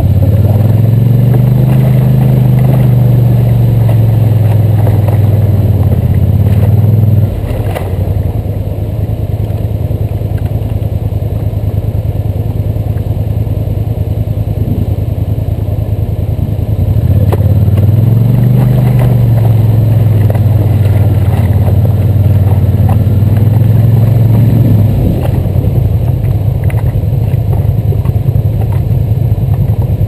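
ATV engine running at a low idle, twice given throttle so the engine note rises and holds for several seconds; the first rise cuts off suddenly, the second eases back down.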